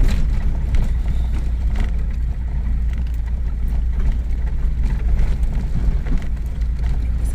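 Pickup truck driving on a rough dirt road, heard from inside the cab: a steady low rumble of engine and tyres, with scattered short knocks from the bumps.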